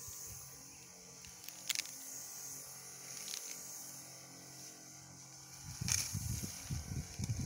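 Wind buffeting the microphone in irregular low gusts from about six seconds in, over a steady high hiss and a few sharp clicks.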